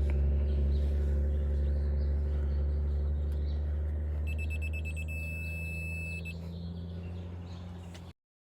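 Steady low mechanical hum that slowly fades, with a high electronic beep lasting about two seconds starting about four seconds in; the sound cuts off abruptly near the end.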